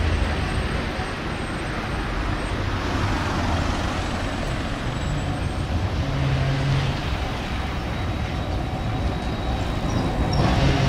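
Electric city trams running on street track through a junction, a steady rumble mixed with urban traffic noise. A low hum comes briefly about six seconds in, and the sound grows louder near the end as a tram comes close.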